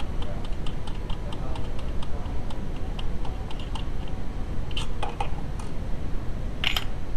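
Light clicking and tapping over a steady low rumble, with a few sharper clacks near the end.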